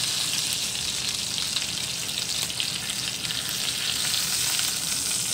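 Butter and oil sizzling steadily in a hot frying pan as browned ground-beef patties are lifted out with a spatula, with faint crackles.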